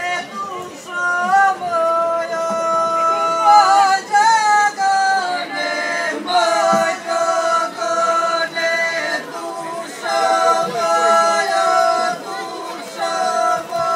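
Mixed group of men and women singing ojkavica, a Croatian style of ojkanje, unaccompanied. They hold long notes that bend and waver in pitch.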